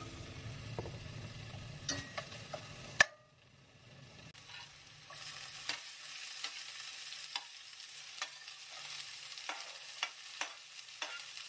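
Food frying and sizzling in a stainless steel pan while a metal slotted spatula stirs it, clicking and scraping against the pan. About three seconds in the sound cuts off abruptly and is briefly quieter, then the sizzle comes back with repeated spatula taps as chopped bell peppers are scraped into the pan.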